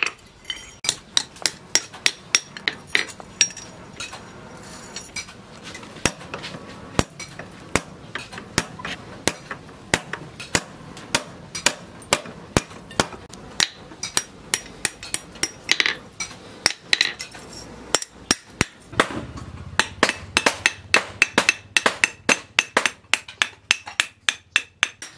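Hand hammer striking red-hot steel on a small post anvil while the axe's eye is being curled around a bar. A steady run of sharp ringing metal blows, about two or three a second, with a couple of short pauses.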